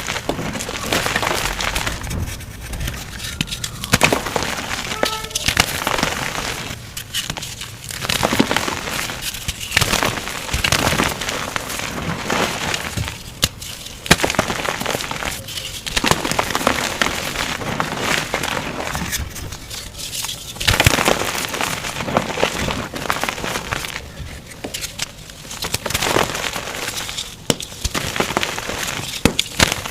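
Blocks of blue glitter gym chalk being crushed, sped up to double speed: a dense crunching and crackling that comes in bouts, with short lulls every two to three seconds.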